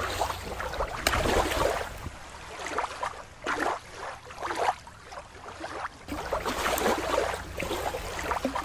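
Shallow water lapping and sloshing at the shore, coming in irregular surges.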